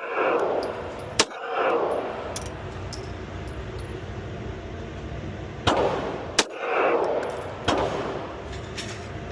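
Pistol shots ringing out in an indoor range: one about a second in, two close together near the six-second mark and another right at the end, each with a short echo, and fainter sharp cracks in between.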